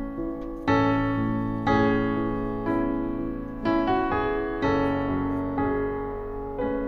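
Slow solo piano music, a note or chord struck about once a second and left to ring out.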